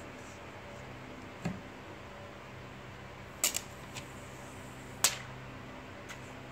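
A few sharp clicks and taps from handling a smartphone and its peeled-off plastic screen film on a wooden table: a duller tap about one and a half seconds in, a quick double click near the middle and a louder click about five seconds in. A low steady hum runs underneath.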